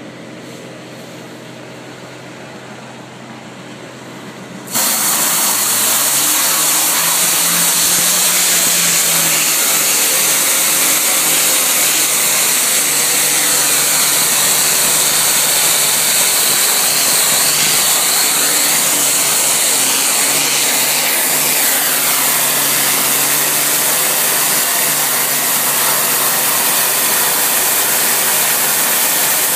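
A pressure washer's motor runs steadily. About five seconds in, the spray gun is triggered and a loud steady hiss of high-pressure water spray starts, with the machine's hum beneath it.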